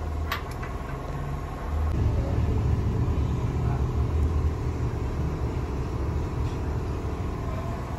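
Low, steady rumble that grows louder about two seconds in.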